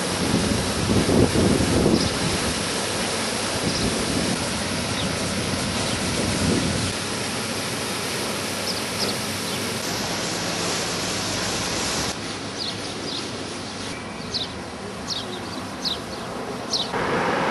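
Fountain water splashing in a steady rush, with a few short high chirps over it, more of them near the end.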